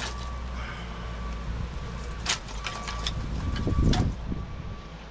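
A few sharp clicks and a dull knock, the loudest about four seconds in, over a steady low outdoor rumble.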